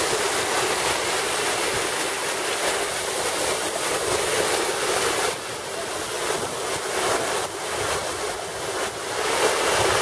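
Waterfall rushing steadily as it pours over the rock into a large pool below; the rush eases slightly about five seconds in.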